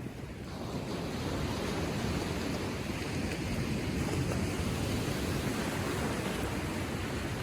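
Gentle ocean surf washing onto the shore, a steady hiss of water that swells about a second in and eases slightly near the end.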